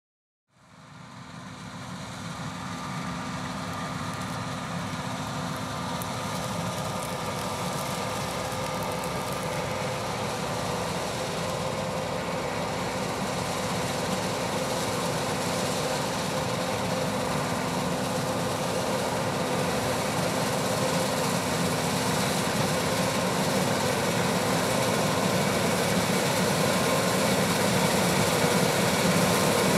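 Farm harvest machinery running: a steady engine drone with a constant hum, fading in over the first couple of seconds and growing slowly louder.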